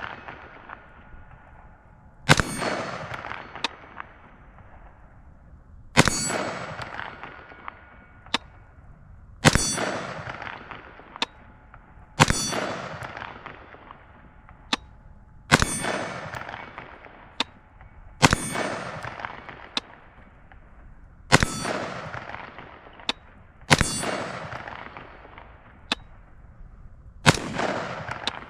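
AR-15 rifle fired in slow, deliberate single shots, nine in all, each crack trailing off in a long echo. A fainter sharp click follows several of the shots.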